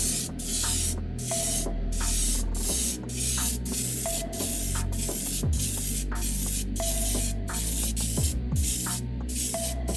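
Airbrush spraying paint onto a plastic model car body in short hissing bursts, about two a second, each trigger pull a brief pass, over background music.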